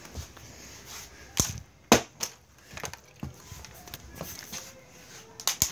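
Several sharp knocks and thuds, the loudest about two seconds in, with a quick cluster of knocks near the end.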